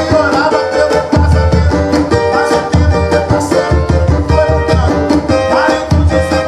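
Cavaquinho strummed over a tantan drum beating out a fast Pentecostal corinho rhythm.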